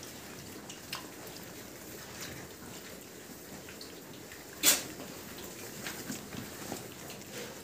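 Piglets moving about a concrete-floored pen: scattered light clicks of trotters and snuffling, with one short, sharp, loud sound a little past halfway through.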